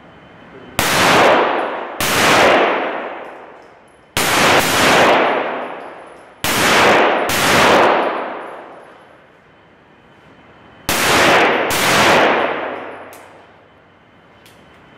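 Semi-automatic pistol fired about eight times, mostly in pairs, each shot sharp and loud, with a long echo off the walls of the indoor range.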